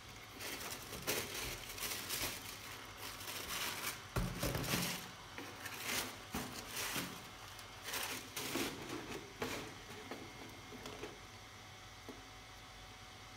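Tissue paper rustling and crinkling in irregular handfuls as it is folded back from around a pair of sneakers in a cardboard shoebox, with a dull bump of the box about four seconds in. The rustling dies down to light handling noise for the last few seconds.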